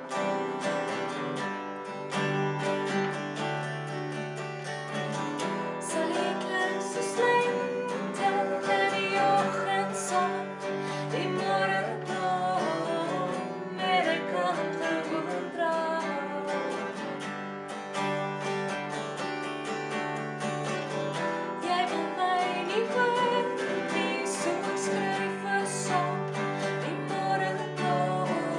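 Two acoustic guitars being strummed together while a woman and a man sing a duet.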